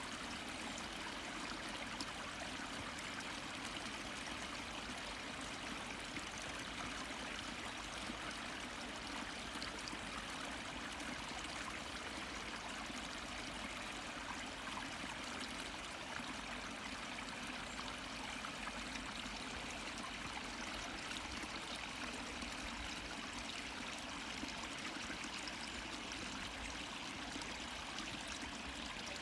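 Water flowing steadily into a pond, a continuous even rush of running water with no breaks or changes.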